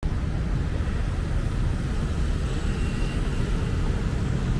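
Outdoor city street ambience: a steady low rumble of traffic mixed with wind buffeting the microphone.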